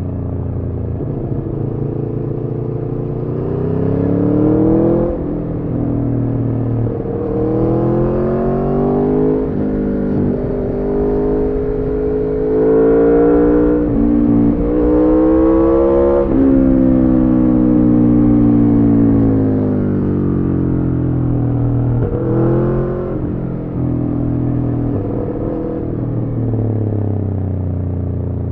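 Aprilia Tuono V4 motorcycle's V4 engine through an Arrow slip-on exhaust with the catalytic converter removed, accelerating through several gears: the pitch climbs and then drops at each shift. After that the pitch falls for several seconds as the bike slows, rises briefly near the end, then settles lower.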